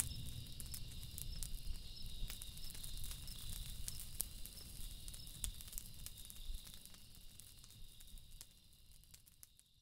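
Faint outdoor ambience: a steady high-pitched hum with scattered crackling clicks over a low rumble, fading out toward the end. The last held notes of music die away at the very start.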